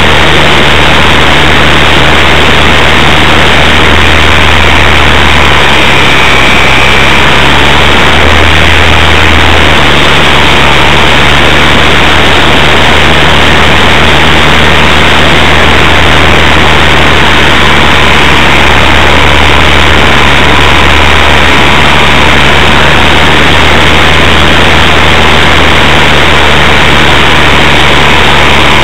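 Loud, steady rush of wind and propeller noise with a low drone from an RC Super Cub LP's electric motor in flight, picked up by a camera mounted on the plane, so the sound is overloaded and distorted.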